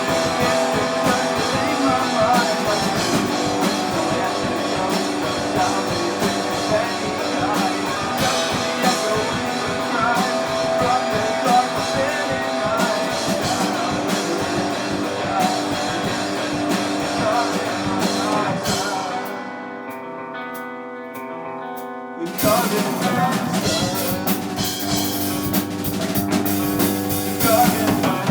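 Rock band playing with guitar, drums and singing. About 19 s in, the drums drop out and only held guitar tones remain for a few seconds, then the full band comes back in.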